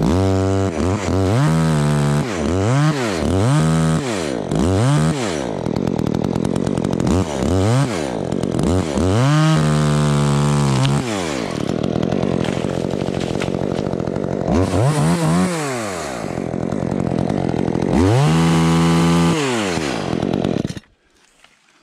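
Two-stroke top-handle chainsaw revved up and down in repeated bursts and held at full throttle while cutting through the Sitka spruce stem. The engine stops about a second before the end.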